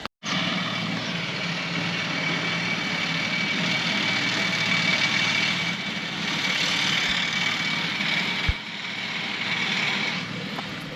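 Tractor engine running steadily while mowing grass, with a brief low thump about eight and a half seconds in.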